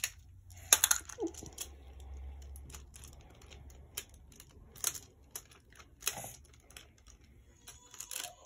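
Plastic magnetic building tiles clicking and clacking as they are handled and snapped onto a tile structure, a few sharp clicks spread out with pauses between them.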